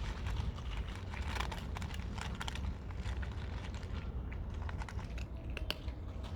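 Cats eating, with a quick irregular run of small crunches and clicks of chewing and biting over a steady low rumble.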